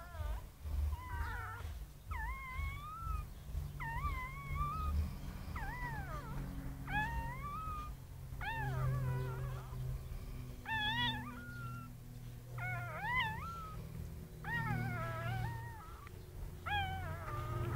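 Newborn puppy crying: repeated thin, high squealing cries, about one a second, each sliding up and down in pitch, over a low rumble.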